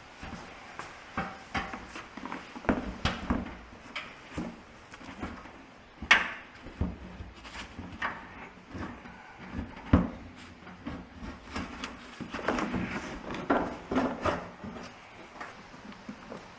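Scattered knocks, clunks and rubbing of parts being handled and fitted onto a steel vehicle chassis, including a hard plastic tank being seated in the frame. Two sharper knocks stand out, about six and ten seconds in.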